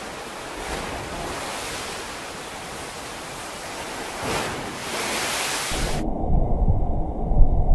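Water sloshing and surging in a cruise ship's swimming pool as the ship rolls in a storm: a steady rushing hiss, with a louder surge about four seconds in. About six seconds in it cuts to a muffled, low rumbling with the highs gone, growing louder near the end.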